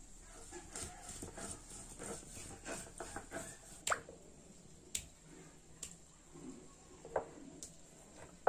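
Hands gathering and pressing ground paste on a flat stone grinding slab (sil-pata): soft squishing and scraping, with a few sharp clicks scattered through. The loudest click comes at the very end.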